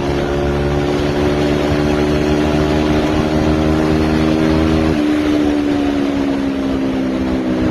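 An engine running steadily under a loud rushing noise, its pitch dropping slightly about five seconds in.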